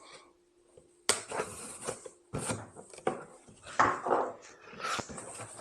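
Cardboard shipping box being cut open and handled: a knife slitting the tape and cardboard flaps scraping and knocking in a string of irregular short bursts.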